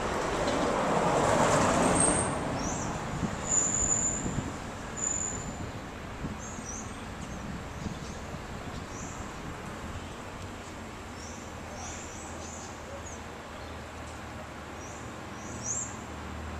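Street traffic: a vehicle passes in the first few seconds, rising and then fading, leaving a steady traffic hum. Small birds give short high chirps every few seconds over it.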